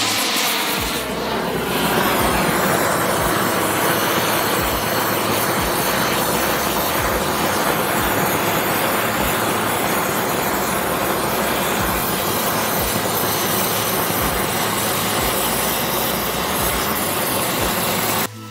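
Oxygen-propylene cutting torch flame burning against a steel pipe: a loud, steady rushing hiss as the flame heats the coating off the pipe ahead of the cut. It cuts off suddenly near the end.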